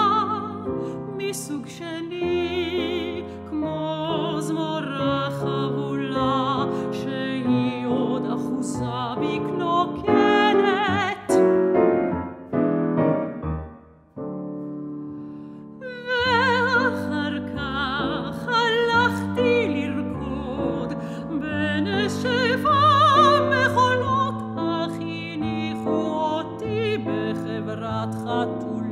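A soprano singing with a wide vibrato over grand piano accompaniment in a classical art song. About halfway through, the music thins and drops to a brief quiet spell, then the voice comes back in.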